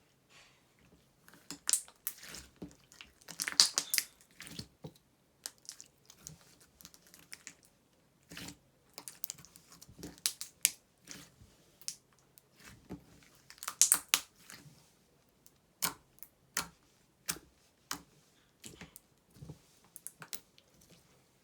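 Clear slime being squished and stretched by hand, making irregular sticky clicks and small pops as trapped air bubbles burst, with louder crackling squelches a few seconds in and again about two-thirds through.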